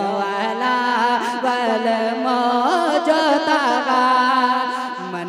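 A man singing a naat into a stage microphone, drawing out one long unbroken line whose pitch bends and wavers.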